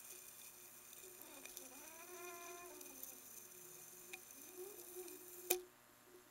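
Faint underwater sound from a camera riding a fishing leader with a hooked fish on the line: steady high tones, a wavering pitched whine between about one and three seconds in and again briefly near five seconds, and a single sharp knock at about five and a half seconds, the loudest moment, as the camera meets the swivel on the leader.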